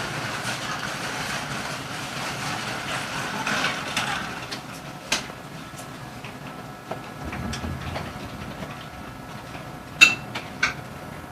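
E129-series electric train standing at a station with its onboard equipment humming steadily, a hiss over the first few seconds, and a few sharp clicks near the end.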